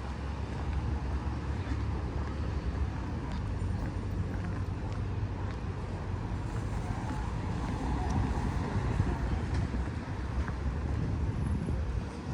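Street traffic: a steady rumble of road vehicles, with one vehicle passing and swelling to its loudest about eight seconds in before fading.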